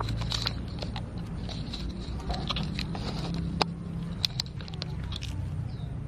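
Leaves and stems rustling and crackling in dense ground vegetation as something moves through it, with many scattered small clicks over a steady low hum.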